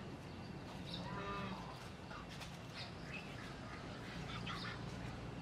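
Faint animal calls: one pitched call about a second in lasting about half a second, then shorter scattered calls, over a steady low hum.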